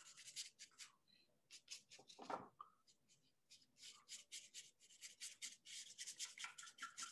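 A paintbrush scrubbing paint onto paper in short, quick, faint swishing strokes, coming faster in the second half. A brief soft thump a little over two seconds in.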